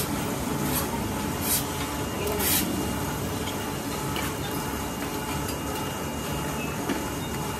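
Foundry melting furnace running with a steady rushing noise as molten metal pours from its spout into a ladle, with a few brief sharp bursts of noise.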